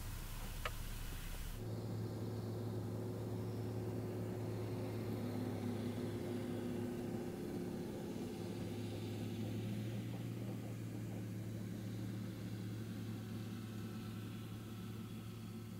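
Steady distant hum of an Archer eVTOL aircraft's electric propellers in flight: a low drone carrying a few steady tones, one of which wavers slightly in pitch near the middle. The background sound changes abruptly about one and a half seconds in, just after a brief tick.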